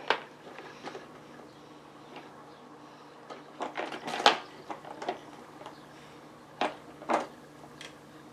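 Plastic toys on a baby jumper's activity tray clicking and knocking as a baby's hands work them: irregular clatters, a quick cluster about four seconds in with the loudest knock, then two single knocks near the end.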